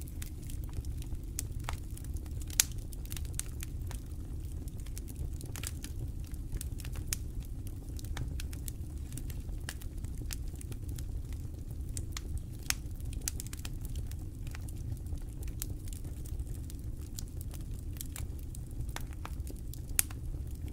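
Wood campfire crackling: a constant scatter of small snaps and ticks over a low steady rumble, with a few louder pops.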